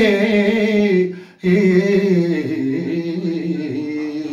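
A man singing a Punjabi Sufi kafi unaccompanied, drawing out long wavering notes. He breaks off for a quick breath about a second in, then holds another long note.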